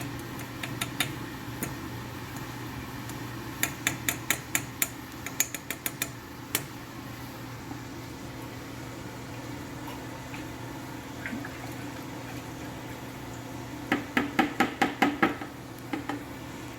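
Two quick runs of light metallic clicks, each several knocks in a row: needle-nose pliers holding a knife handle scale tapping against the rim of a metal pot of dye during fast dips. A steady hum runs underneath.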